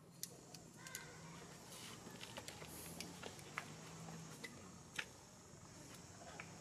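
Faint outdoor ambience: scattered sharp little clicks and taps, the sharpest about a second, three seconds and five seconds in, over a low steady hum and a faint high hiss.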